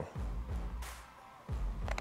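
Quiet background music, with a short soft knock near the end as metal snap ring pliers are set down on a cardboard-covered workbench.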